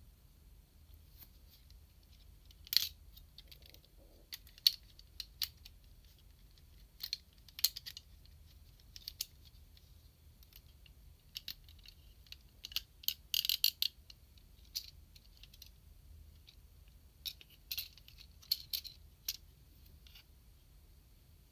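Hard plastic parts of an SMP GaoKing figure clicking and clacking as they are fitted together and its joints are moved. The clicks come in scattered groups, with a quick flurry of them a little past the middle.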